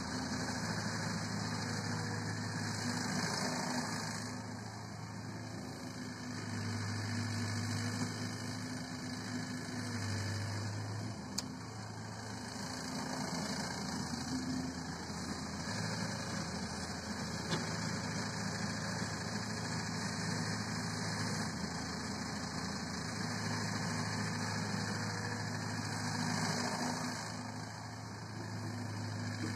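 Diesel engine of a small Caterpillar excavator running while the machine digs, its note swelling and easing every few seconds as the hydraulics take load. There is one brief sharp click about eleven seconds in.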